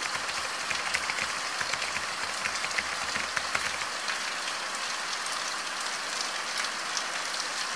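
Heavy rain falling on plastic tarps and corrugated roofing, with water streaming off the awning edges: a dense, steady patter of drops that fades in at the start.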